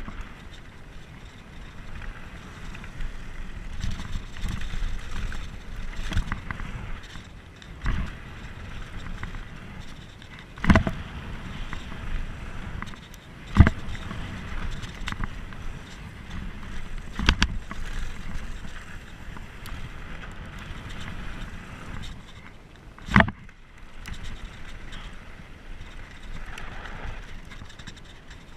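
Mountain bike riding fast down a dusty dirt trail: a steady rumble of tyres on dirt, wind on the microphone and the bike's rattle, broken by four sharp knocks as the bike hits bumps.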